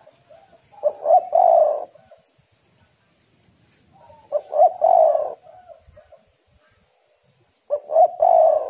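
Spotted dove (tekukur) cooing: three phrases a few seconds apart, each one or two short notes running into a longer rolling coo. The uploader gives it as the call of a female.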